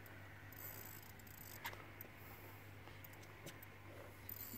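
Near quiet: a low steady hum with a few faint, scattered ticks.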